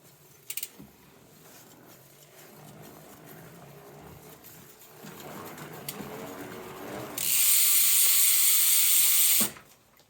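Bicycle drivetrain with a Pinion C1.12 12-speed gearbox turning, with a mechanical ratcheting whir. There is a click about half a second in, the whir builds over several seconds, and then a loud high buzz lasts about two seconds before cutting off suddenly.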